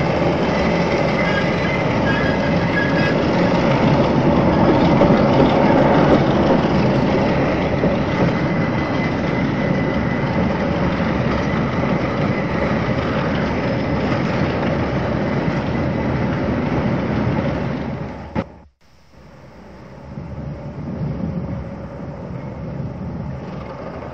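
Train running on the rails, a steady loud rumble with faint whining tones. About eighteen seconds in it drops away abruptly, and a quieter train sound fades up in its place.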